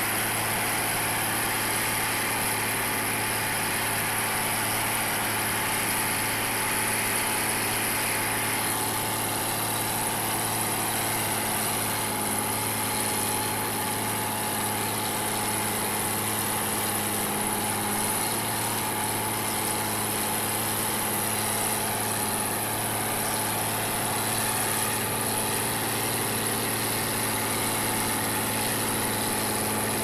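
Large articulated four-wheel-drive tractor's diesel engine running steadily as the machine works in deep snow.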